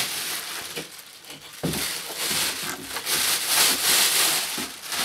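Thin plastic packaging bag rustling and crinkling as a vacuum cleaner hose is pulled out of it, louder from about a second and a half in.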